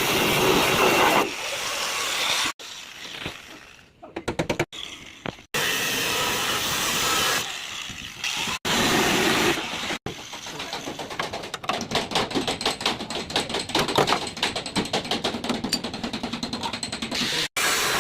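Car body-repair workshop tool noise in short cut clips: hissing noise, then in the second half a rapid rattle of sharp strokes, several a second.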